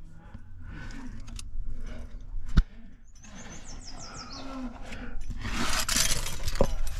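A rock climber's effortful breathing and grunting close to the microphone on a strenuous sandstone overhang, with a sharp knock about two and a half seconds in and a loud, breathy rush near the end.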